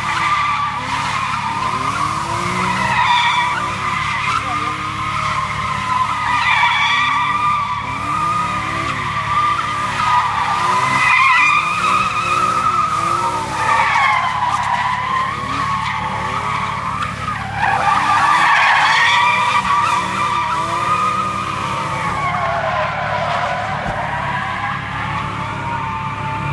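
A car doing donuts: a continuous tyre squeal that wavers in pitch, with the engine revving up and down underneath it over and over.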